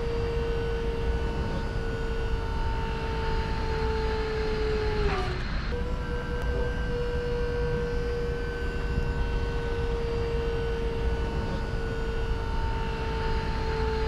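Hydraulic power unit of a truck's wing body whining steadily as it raises the wing, over a low rumble. About five seconds in its pitch sags and it stops briefly, then it starts again.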